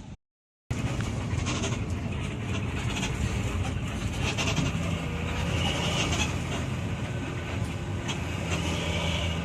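Intercity bus running in heavy traffic, its engine running steadily, with its multi-tone 'telolet' air horn sounding in two stretches, from about halfway in and again near the end.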